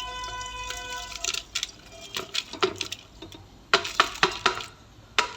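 Metal clinks and knocks of a pressure cooker being handled as mixed dal goes in, sharp and irregular, loudest in the second half. A steady humming tone fades out about a second in.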